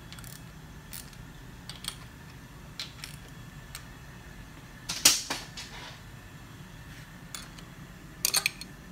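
Scattered metallic clicks and clinks of a 9/16 wrench working the bolts on an engine's idler bracket, loosening them, with one louder metal clank about five seconds in and a quick run of clicks near the end.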